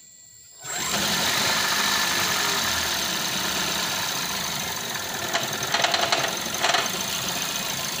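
Toyota Aqua (Prius C) hybrid's 1.5-litre four-cylinder petrol engine comes on sharply about a second in and runs with a loud rattling noise and heavy vibration, with a few louder clattering moments near the middle. The rough running goes with a P0171 system-too-lean code.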